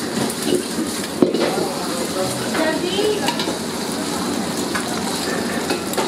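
Beaten egg sizzling in hot oil in an iron wok while a long metal ladle scrapes and knocks against the wok, with one sharp clank about a second in.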